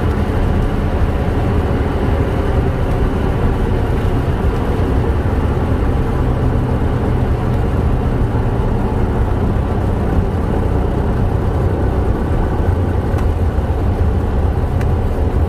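Cessna 172's piston engine and propeller running steadily, heard from inside the cockpit as the plane rolls along the runway.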